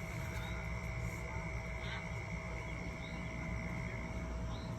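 Outdoor background with a steady low rumble and a steady thin high tone, plus a few short faint chirps scattered throughout.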